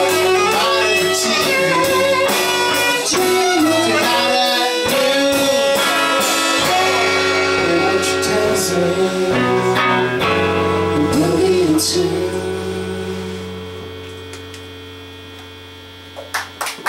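A live band of electric guitar, drum kit and saxophone playing a song to its end: the drumming stops about twelve seconds in and a final held chord rings out and fades.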